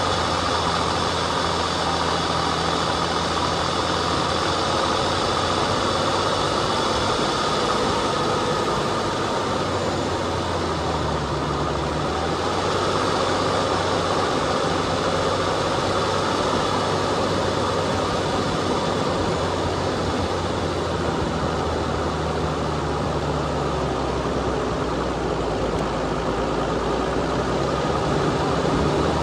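Off-road vehicle's engine running at low, steady revs while climbing a dirt trail, its note shifting slightly about a third of the way in and again later, over a constant noise of the drive.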